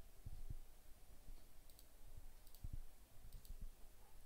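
Faint computer mouse clicks: three quick double ticks, press and release, a little under a second apart in the second half, with a few soft low thumps.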